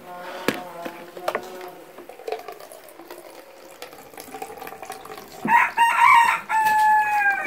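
A rooster crowing: a few quick loud notes, then one long held note that sinks slightly in pitch, about five and a half seconds in. Before it there are a few faint clinks of spoons against bowls.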